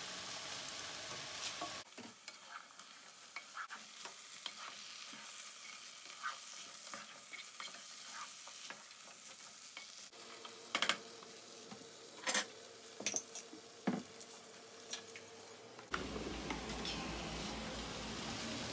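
Beans and tomato sauce sizzling in a pot while a wooden spatula stirs them, with scattered scrapes and knocks of the spatula against the pot, a few louder knocks in the second half.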